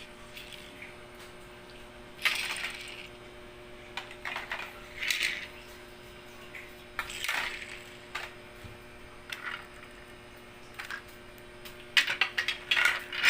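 Small plastic toys being handled and set down, giving short bursts of clatter and rattling every couple of seconds, the busiest burst near the end.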